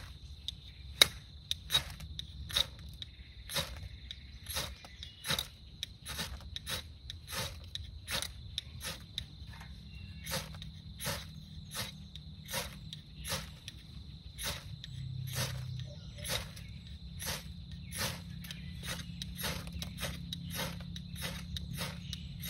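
Ferro rod struck over and over with a scraper, about two sharp scrapes a second, throwing sparks onto birch bark tinder to light it. A steady high insect drone runs behind.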